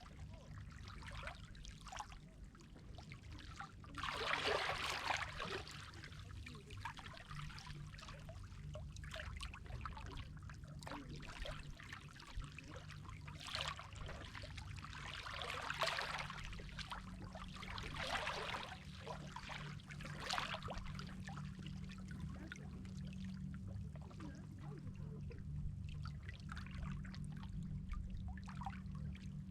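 Sea water lapping and splashing in irregular surges, the strongest about four seconds in, over a steady low rumble.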